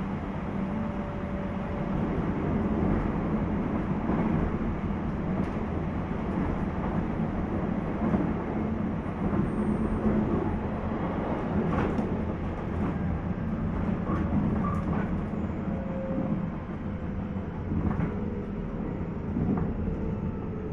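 Onboard running noise of a JR East 719 series electric train (motor car KuMoHa 719-1): a steady rumble of wheels and traction motors, with a few faint clicks. Near the end a motor tone slowly falls in pitch.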